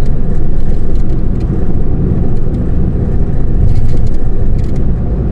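Steady road and engine rumble heard from inside a car cruising at highway speed, deep and even throughout.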